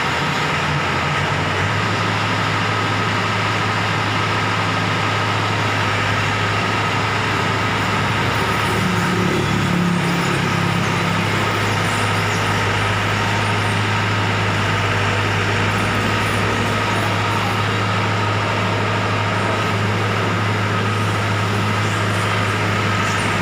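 Diesel engine running steadily with a deep, even hum, its note shifting briefly about nine to eleven seconds in.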